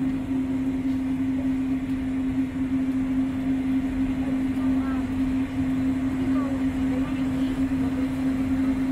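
Disneyland Monorail train running at steady speed, heard from inside the car: a steady, even hum from the train over a continuous rush of moving air and running noise.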